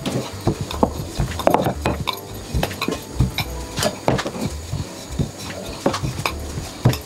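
Wooden rolling pin working yeast doughnut dough out thin on a floured wooden board: irregular wooden knocks and dull thumps, a few each second, as the pin is rolled, lifted and set down again.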